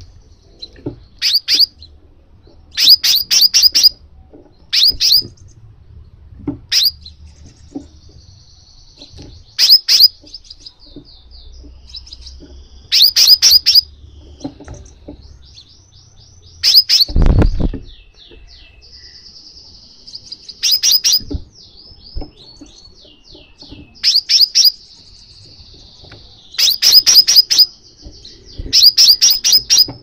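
Sunbird (kolibri sepah raja) calling: short bursts of rapid, sharp chirps every few seconds, with softer twittering runs between them. There is one heavy thump about seventeen seconds in.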